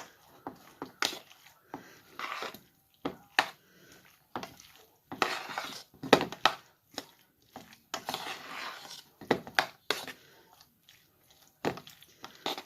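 A spoon scooping mayonnaise and stirring it through potato salad in a bowl: wet squishing, with repeated sharp taps and clinks of the spoon against the bowl.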